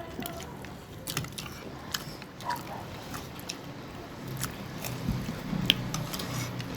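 People eating biryani close to the microphone: chewing, with a scatter of small clicks and taps and one sharper click late on.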